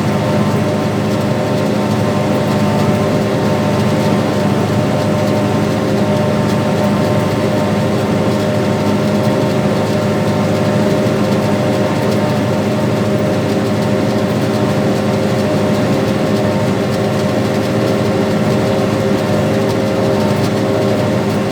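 Farm tractor's diesel engine running at a steady working speed while pulling a planter: a constant drone with several steady tones that neither rises nor falls.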